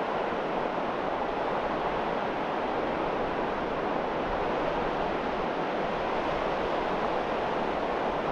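Steady, even rush of surf breaking along the shore.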